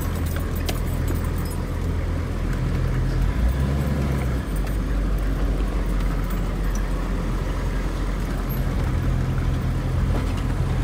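Hummer H1's engine running at low speed, a steady low rumble whose pitch shifts briefly about four seconds in.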